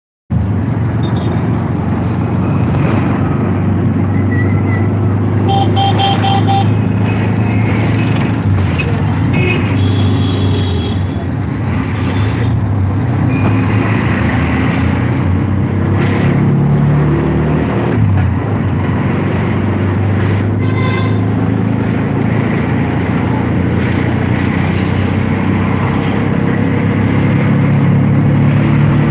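Street traffic heard from a moving vehicle: steady engine and road noise, with a few short horn toots, the clearest about six seconds in and another about 21 seconds in.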